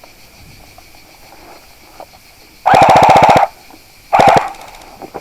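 Airsoft rifle firing two short full-auto bursts, a rapid even clatter of about fifteen shots a second, the first burst most of a second long and the second shorter.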